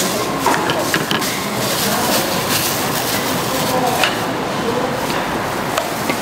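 Food-stall market ambience: a steady hiss of background noise with indistinct voices and scattered clinks and knocks.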